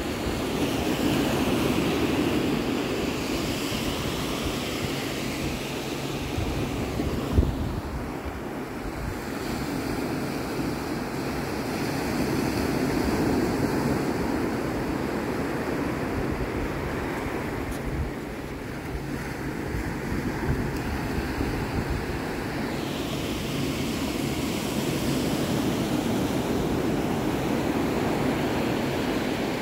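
Atlantic surf breaking and washing up a sandy beach, swelling and easing every several seconds, with a low rumble of wind on the microphone. A brief bump sounds about seven seconds in.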